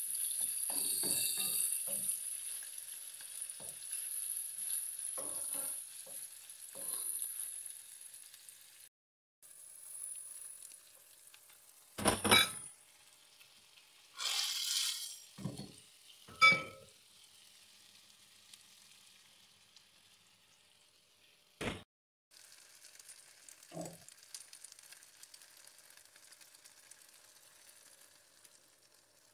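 Minced meat and onion sizzling in a frying pan while a wooden spoon breaks them up and scrapes across the pan. Midway come a few sharp knocks and a short rushing pour as rice goes into the pan, and after that a fainter sizzle.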